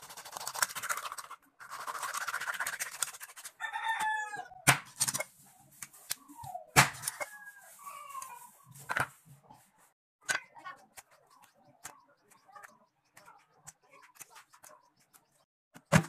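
A large knife chopping through a black scabbard fish on a cutting board: a rasping scrape in the first few seconds, then several sharp, separate knocks. Chickens calling in short, bending clucks in the background, around four seconds in and again around seven to eight seconds.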